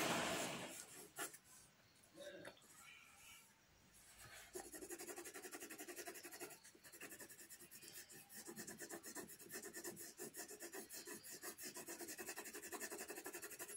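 Graphite pencil shading on paper: back-and-forth strokes scratching against the paper. A few scattered, quieter strokes open the clip, then about four and a half seconds in it settles into a steady rhythm of several strokes a second.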